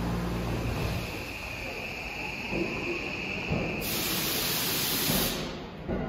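Eidan 9000-series subway train standing at the platform. A low hum dies away about a second in, then a loud burst of air hiss about four seconds in lasts about a second and a half, typical of the train's brakes venting compressed air.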